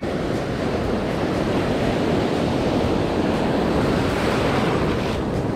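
Breaking surf and foaming whitewater washing close by: a steady, even rush.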